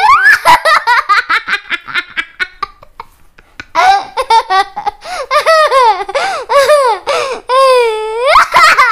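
A young child laughing hard: a quick run of ha-ha-ha pulses for about three seconds that trails off, a short pause, then more high laughter whose pitch swoops up and down.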